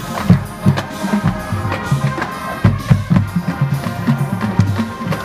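Marching band playing its field show: the wind section holds sustained chords over a steady pounding of the marching bass drums and the rest of the drumline.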